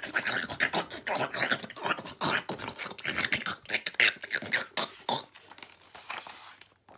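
A woman's mouth noises imitating piranhas gobbling up fruit: fast, snappy chomping and growly munching sounds, many a second, easing off about five seconds in. A picture-book page is turned near the end.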